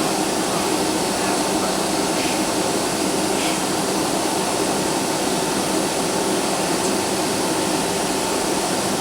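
Steady jet engine and airflow noise inside the passenger cabin of a Boeing 757-200, an even rushing hum that holds level.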